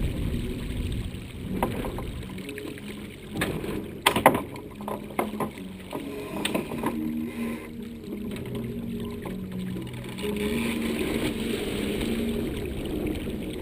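Bull 7000 sailboat moving under sail, water rushing and splashing along its hull with wind on the microphone. A few sharp knocks from the boat's deck or rigging about four seconds in.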